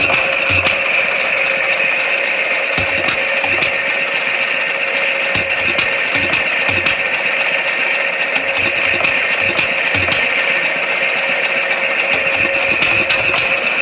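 Unsilenced 5 HP Bovaird and Seyfang single-cylinder hot-tube-ignition gas engine running, its exhaust beats coming about once a second at uneven intervals, with mechanical clicking and a steady high-pitched hiss over it.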